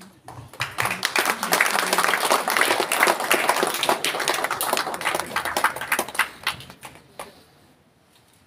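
Audience applauding, building up in the first second and dying away about a second before the end.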